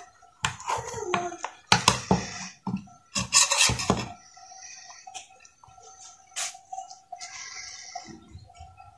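Steel knife blade scraping and clinking against a large metal tray as it prises squares of set besan barfi loose. The scrapes and clicks come mostly in the first four seconds, then it goes quieter with only a few light knocks.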